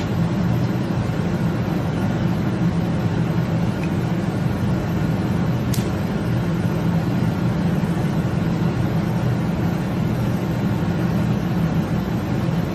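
A steady low rumble of running machinery, like a vehicle's engine and road noise, with a faint tick about six seconds in.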